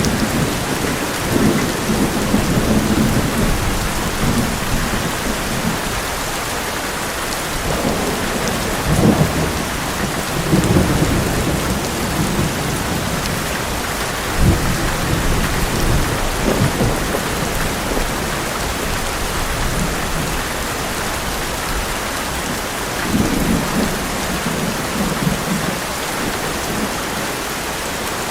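Heavy rain drumming on an old metal roof in a steady hiss, with thunder rumbling low several times.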